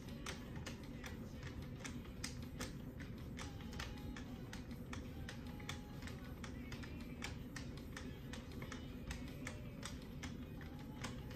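Leather strops on a Wicked Edge guided sharpener worked in quick alternating strokes along a knife edge, giving a steady run of light taps, about three to four a second. Background music plays underneath.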